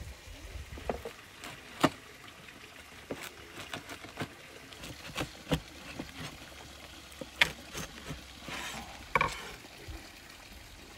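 A cleaver chopping through crusty baked pide onto a wooden cutting board, giving about eight sharp knocks at uneven intervals, with wooden platters being knocked against the table.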